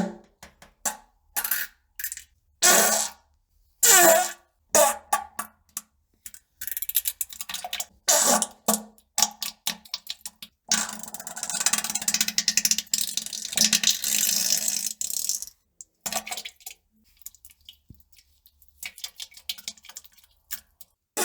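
A run of fart and pooping sounds: many short separate bursts, each cut off sharply with silence between, and a longer noisy stretch of about five seconds near the middle.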